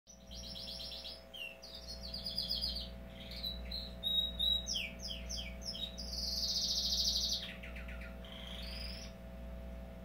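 Male domestic canary singing: a long song of rapid trills and quick chirps, with a fast, loud high trill in the middle, then a lower trill and a rising note before the song stops about a second before the end. A steady low hum runs underneath.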